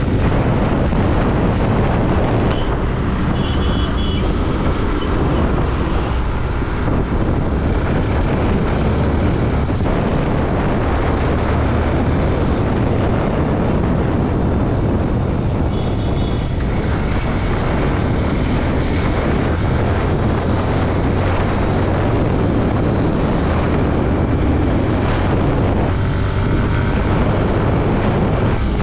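Yamaha motorcycle ridden at road speed: steady engine and tyre noise with wind rushing over the microphone.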